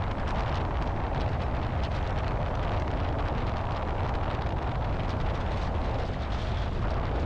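Steady rush of wind over a camera mounted outside a light airplane in flight, with the low, even drone of the engine and propeller underneath.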